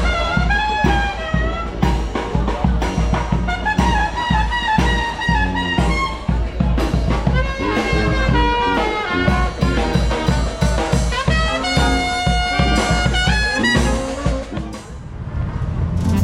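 Brass band playing New Orleans second line jazz: trumpets and trombones carrying the melody over a steady drum beat and a deep bass line.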